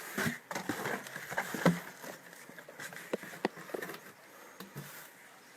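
Packaging and small plastic items being handled: light rustling with scattered clicks and taps, busiest in the first two seconds, then a few sparse clicks.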